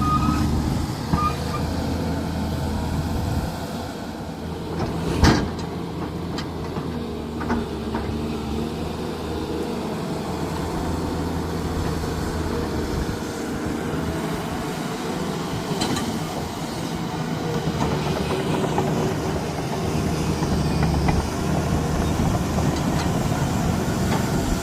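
Heavy diesel machinery running steadily, with a sharp metallic knock about five seconds in and a few lighter clanks later.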